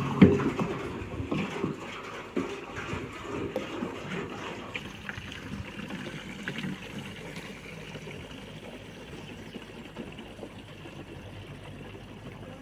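A sharp knock just after the start, then water running steadily from a metal tank's tap into a plastic jerrycan as it fills.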